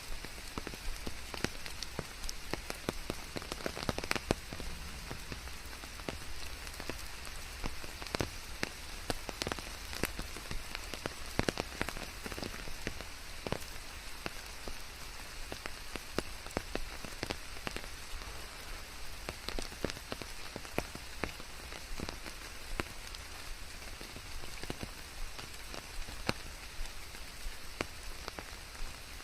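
Steady rain falling on a hard surface: an even hiss of rainfall with many separate drops ticking sharply close by.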